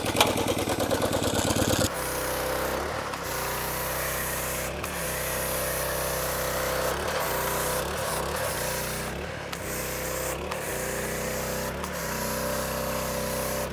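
Honda gas pressure washer engine running. About two seconds in, the trigger opens and a spray hiss joins the engine as the foam cannon lays down thick foam, and the engine note dips briefly now and then.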